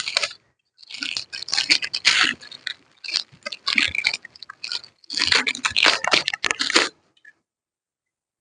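SATA cable and connector being handled against a drive: rustling, scraping plastic with quick clicks in three bursts, stopping about seven seconds in.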